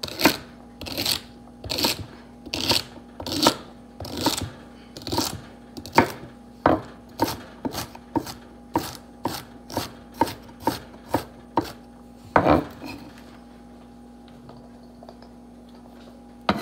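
Kitchen knife chopping celery on a wooden cutting board: a steady run of sharp strokes, about one to two a second and quickening toward the middle, that stops about three-quarters of the way through after one louder knock.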